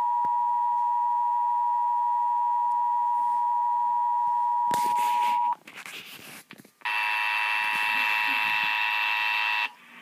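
Emergency Alert System attention signal played through laptop speakers: a steady two-note tone that cuts off about five and a half seconds in. After a short gap a second, harsher and buzzier alert tone sounds for about three seconds, then stops.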